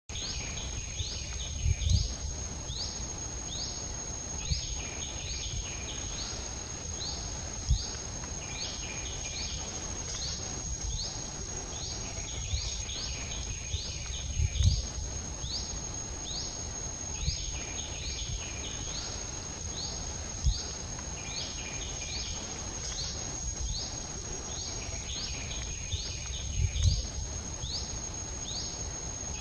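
Outdoor forest ambience: a steady high-pitched insect drone with short rising bird-like chirps repeating about once or twice a second. A few dull low thumps stand out as the loudest sounds.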